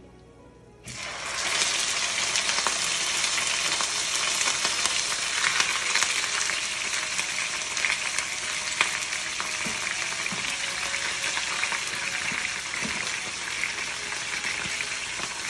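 Marinated chicken pieces hitting hot ghee in a nonstick kadai, bursting into loud sizzling about a second in that carries on steadily, easing a little as the meat starts to fry.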